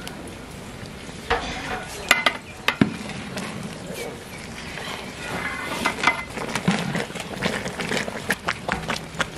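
Long metal ladle stirring parboiled rice into chicken biryani masala in a large aluminium pot, scraping and knocking against the pot with sharp clicks, a cluster about two seconds in and many more in the second half. Near the end more drained rice is tipped in from a plate.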